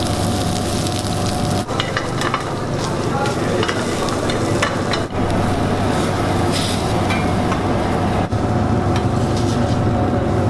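Chopped onion, garlic and curry leaves frying and sizzling in oil in a steel pan, stirred with a metal ladle, over a steady low hum. The sound breaks off abruptly a few times.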